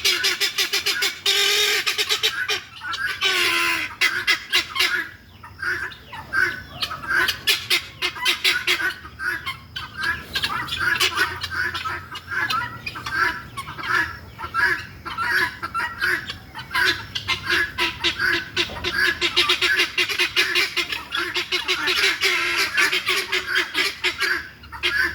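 A flock of helmeted guineafowl calling together: a continuous racket of harsh, rapidly repeated calls, several a second, overlapping without a break.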